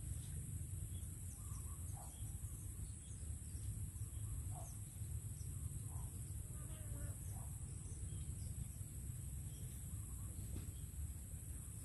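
Steady high-pitched chorus of insects, with short faint bird chirps scattered through and a low steady rumble underneath.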